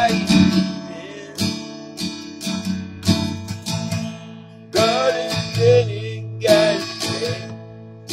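Acoustic guitar being strummed in a steady rhythm, with a man singing over it near the start and again from about five seconds in.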